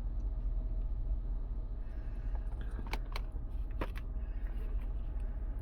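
Steady low rumble of a car cabin, with a few sharp clicks and taps about three to four seconds in from handling the plastic sushi tray.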